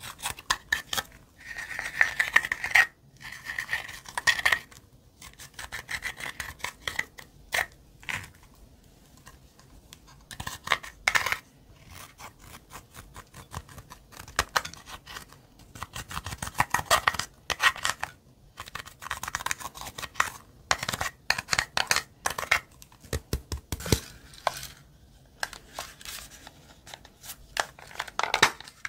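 A metal-tipped tool scraping and digging pressed eyeshadow out of a plastic palette. The sound is quick gritty scratches and clicks in runs of a second or two, with short pauses between them.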